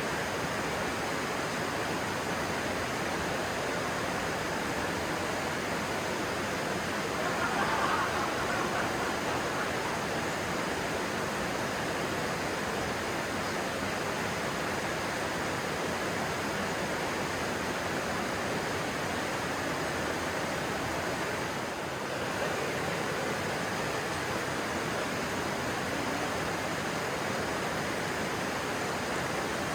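Stream water rushing steadily over rocks, an even hiss, swelling a little about seven seconds in.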